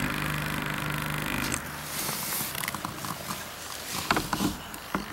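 A small motor hums steadily with a buzzing edge and stops about a second and a half in. After it come scattered clicks and knocks of the camera rig being handled.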